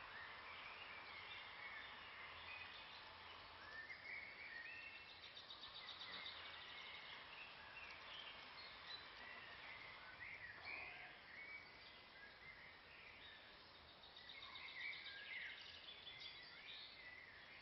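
Faint wild songbirds chirping and calling, with a couple of rapid trills, over a quiet outdoor hiss.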